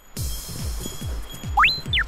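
Electronic background music kicking in after silence, with a steady beat and a high pitch sweep that rises sharply then falls back near the end.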